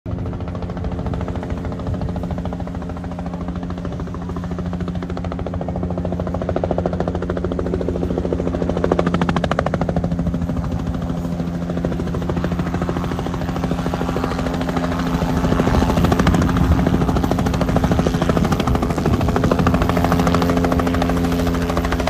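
Light single-engine helicopter approaching, its main rotor making a rapid, even chop over a steady low hum, growing steadily louder as it nears.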